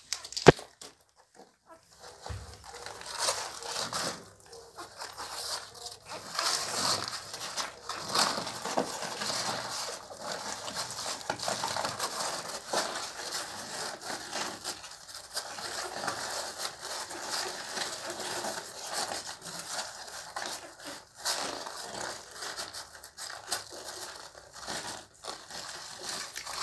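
Close, irregular rustling and crackling from newborn puppies nursing at their mother and being shifted by hand, with many small clicks.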